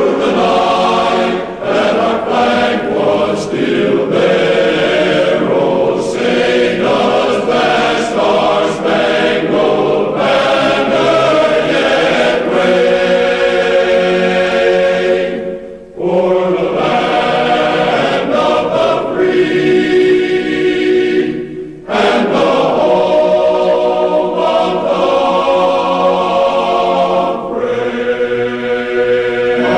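Choral music: a choir singing sustained notes, with two brief pauses about 16 and 22 seconds in.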